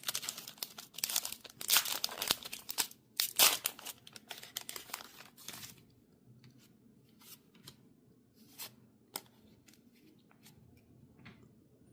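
Foil booster-pack wrapper being torn open and crinkled, with the loudest tearing in the first few seconds. After about six seconds it gives way to faint scattered clicks of the cards being handled.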